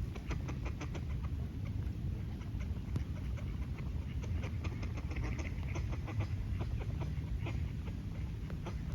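Small birds bathing in a bird bath: quick irregular splashes and flicks of water over a steady low rumble of wind on the microphone.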